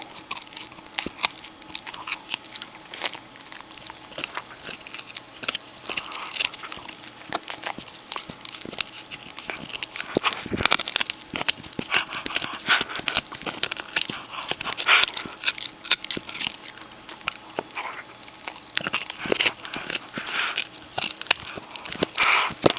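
Shetland Sheepdog puppy gnawing a large rawhide chew: irregular crunching and clicking of teeth on the stiff hide, with no steady rhythm.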